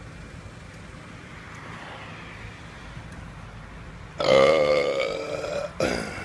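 A man belching loudly about four seconds in: one long burp of about a second and a half, followed by a short second one.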